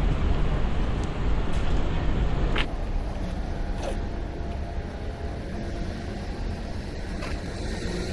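City street ambience: a steady rumble of traffic and street noise, with a sharp click a few seconds in and a short falling squeal about a second later.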